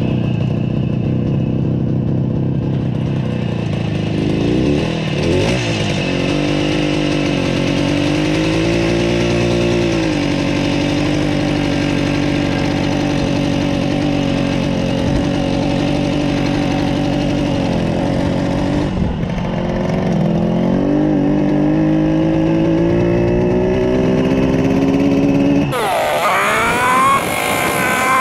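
Yamaha YDS3's two-stroke parallel-twin engine pulling the bike along at low speed. Its pitch climbs and then drops back several times as it accelerates and is shifted or eased off. The carburetors have been cleaned and fitted with the correct needle jets.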